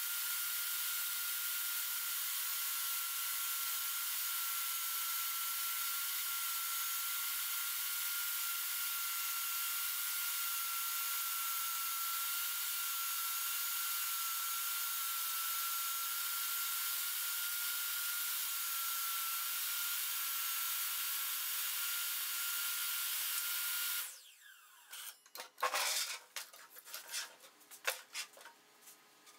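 Jobsite table saw running steadily with a high motor whine while ripping a plywood panel to size. Near the end the sound cuts off abruptly, leaving scattered knocks and clatter as the plywood sheet is handled on the saw's table.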